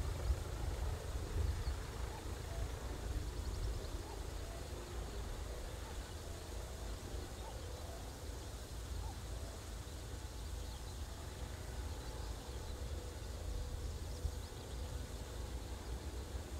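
Wind rumbling on the microphone over faint, steady outdoor background noise.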